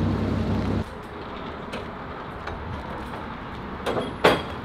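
Hyster forklift engine running steadily, cut off abruptly about a second in. Then quieter outdoor background with two sharp knocks near the end, the second the loudest.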